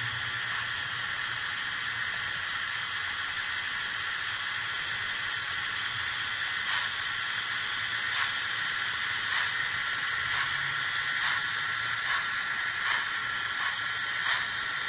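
Märklin HO model steam locomotives running slowly along the track: a steady hiss with a low motor hum, and from about six seconds in, light irregular clicking of the wheels and mechanism.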